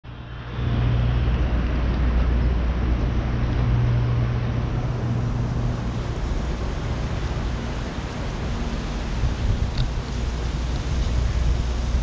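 Steady outdoor city ambience: a constant low hum and rumble under an even background hiss, fading in over the first half second.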